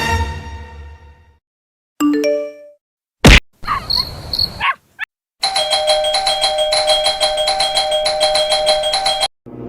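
A string of separate comedy sound-effect clips. Music fades out, then come a short chime of a few stepped tones, a single sharp click and a brief noisy effect. Last is a long electronic ringing that pulses rapidly for about four seconds and stops abruptly.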